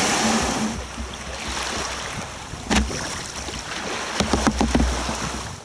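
Shallow wave wash hissing around a sea kayak's hull as it runs up onto a wet sand-and-shingle beach, with wind on the microphone. There is a single knock about three seconds in, then a quick run of knocks and scrapes near the end as the hull grounds on the shingle.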